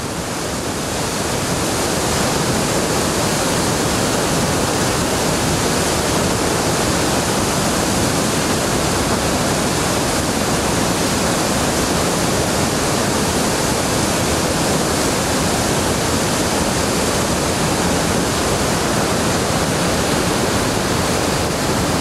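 Turbulent whitewater rushing and churning, a steady roar of falling water that fades up over the first couple of seconds.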